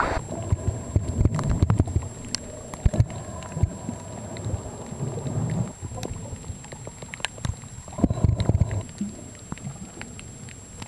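Muffled underwater sound from a camera just submerged over a coral reef: low surging water noise that swells and fades several times, with scattered sharp clicks. Right at the start the open-air sound cuts off as the camera goes under.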